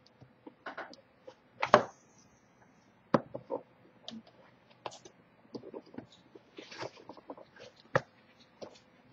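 A cat's paws and claws scratching, rustling and knocking against a cardboard box as it rolls and plays: irregular short scrapes and clicks, with louder knocks about two, three and eight seconds in.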